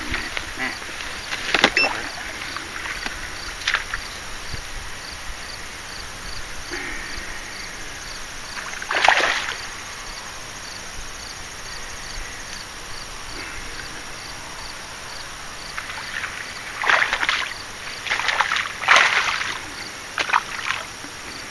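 Water splashing in short bursts as a hooked fish thrashes at the surface near the bank, with one loud splash about nine seconds in and a cluster of splashes near the end.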